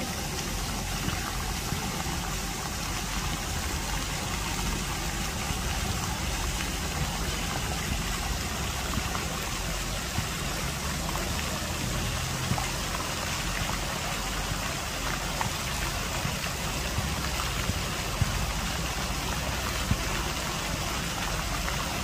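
Fountain jets spraying and splashing into a lake: a steady rushing of falling water.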